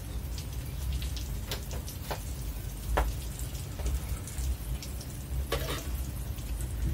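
Light crackling from a hot wok on a gas stove, over a low steady rumble, broken by a few sharp clicks and knocks of kitchenware and the stove being handled; the loudest click comes about 3 s in.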